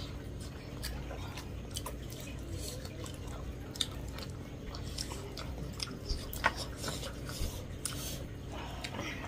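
Two people chewing and biting into meat curry and rice eaten by hand. Many small, sharp mouth clicks are scattered irregularly throughout.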